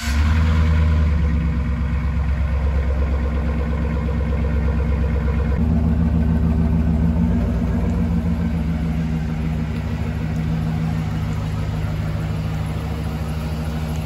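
2007 Chevrolet Silverado 1500's 4.8-litre Vortec V8 running, heard from behind at its dual tailpipes just after being started. It is loudest in the first second or two, then settles to a steady idle. About six seconds in, the note shifts as the truck backs slowly out of the garage.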